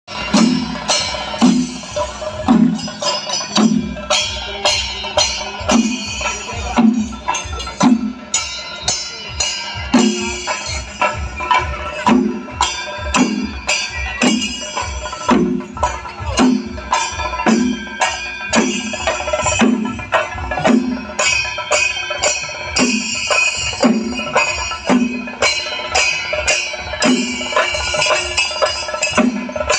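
Kerala chenda drum ensemble playing temple percussion: dense, rapid stick strokes on the drumheads over a steady deep beat a little more than once a second.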